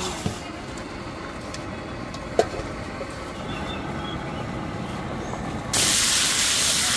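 Low clatter and din of a busy food-stall kitchen with a single clink about two and a half seconds in, then a loud, even cooking hiss that starts abruptly near the end.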